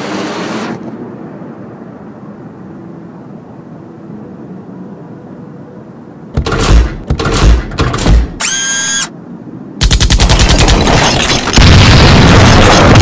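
Action-movie sound effects over street ambience: a passing car fades out, then several loud booms, a short shrill pitched screech, and a rapid machine-gun-like rattle that gets louder near the end.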